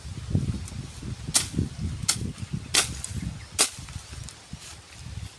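Sharp knocks or taps, four loud ones spaced less than a second apart with fainter ones between, over a low rumble.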